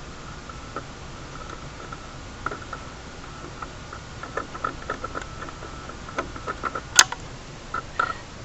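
Soft, irregular clicks and crackles of a large soldering gun and solder at work on a wire wrapped into a solar panel tab, with one sharper click about seven seconds in.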